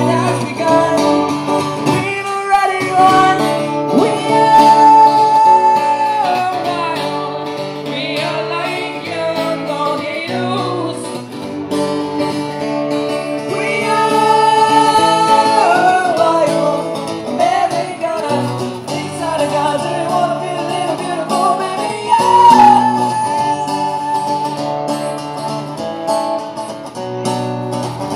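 Live song performance: guitar chords played under a sung melody.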